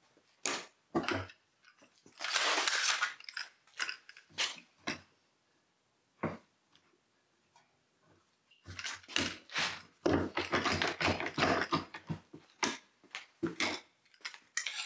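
Knocks and scrapes of a wooden drilling jig being handled on a workbench top, then a one-handed bar clamp clicking as it is squeezed to clamp the jig down. A quiet gap comes about halfway through.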